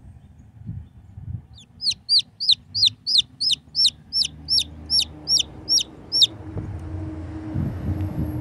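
Day-old Jersey Giant/black onyx chick peeping: a run of about fifteen shrill, evenly spaced peeps, roughly three a second, each a quick rise-and-fall in pitch, starting about two seconds in and stopping just past six. A low rumble builds over the last couple of seconds.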